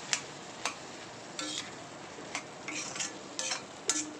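A metal slotted spoon scraping and knocking against a kadai while stirring diced raw banana frying in oil, about eight irregular strokes, over a faint steady sizzle. The banana is cooking down on a low flame after a sprinkling of water.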